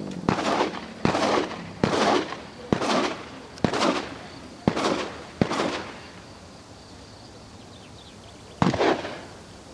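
Shotgun shots fired in quick succession, about one a second: seven in a row, a pause of about three seconds, then another shot near the end. Each shot is a sharp crack followed by a short echoing tail.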